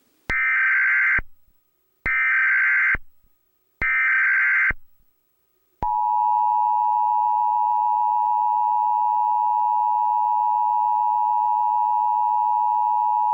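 Emergency Alert System alert: three short bursts of SAME header data, about a second each, then about six seconds in the long, steady two-tone EAS attention signal. It signals an emergency broadcast, here the National Weather Service Tornado Watch message.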